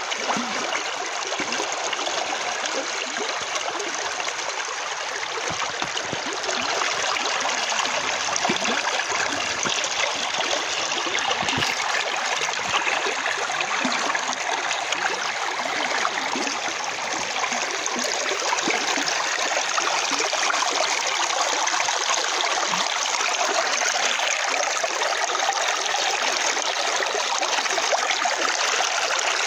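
Shallow, rocky river rushing steadily past the log supports of a footbridge: an even wash of flowing water.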